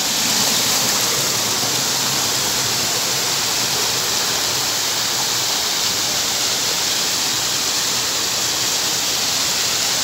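Stream water rushing steadily over rocks in small waterfall cascades, close by.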